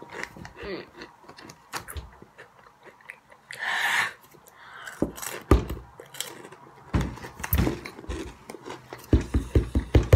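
Chewing and crunching of hot Cheetos-type snack chips close to the microphone. About four seconds in there is a breathy hiss of air, and in the second half a run of irregular crunches and knocks.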